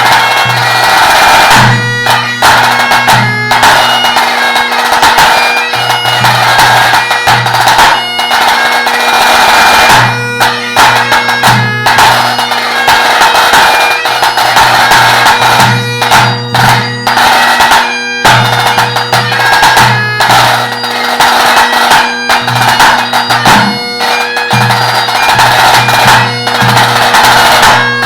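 Highland bagpipe playing a tune over its steady drones, with a tenor drum struck along in time; the low drum strokes come and go in phrases.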